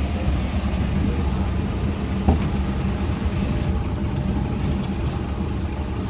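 Diesel engine of a tracked site machine idling with a steady low drone, with a single knock a little over two seconds in.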